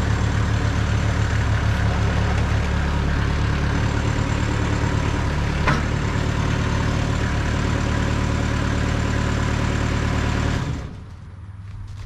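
TimberKing 2000 sawmill's engine running steadily while its hydraulics lift and position a squared pine cant on the bed, with one sharp click midway. Near the end the sound drops abruptly to a much quieter low idle as the hydraulic load comes off.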